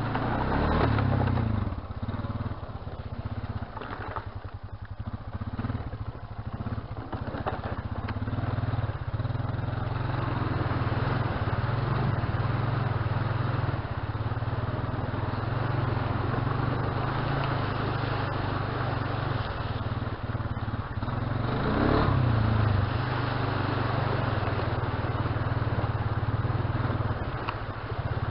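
Honda Rancher ATV's single-cylinder four-stroke engine running at low speed under a steady rushing noise, revving up and back down briefly about a second in and again about three-quarters of the way through.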